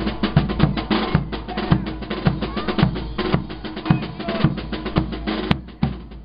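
Brass band playing: bass drums and snare beating a steady quick rhythm, about four hits a second, under sustained brass notes from tubas, trumpets and saxophones. The playing briefly drops away just before the end.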